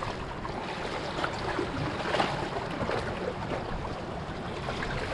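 Shallow water lapping and gurgling against a rocky shore, a steady wash with small splashes.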